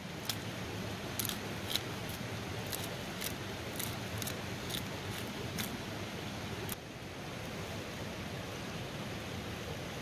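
Hand-held pepper and salt grinder twisted over the pan, giving about a dozen sharp crunching clicks over the first seven seconds. Underneath is the steady sizzle of lamb and vegetables frying in a sac pan over a wood fire.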